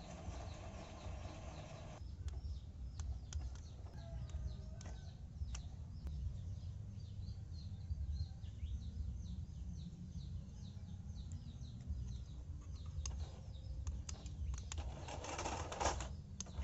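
Small birds chirping repeatedly over a steady low outdoor rumble. A toy RC truck's small electric gear motor whirs at the start and again near the end, as the truck pulls a toy road roller on a tow cable.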